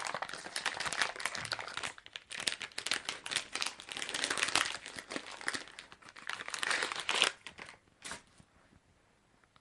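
Snack packet crinkling and tearing as it is worked open by hand, a dense run of crackles that stops about eight seconds in.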